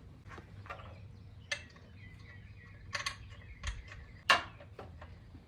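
Scattered light metallic clicks and taps, about seven of them at irregular spacing and the loudest about four seconds in, from working the old crush washer off the oil drain plug.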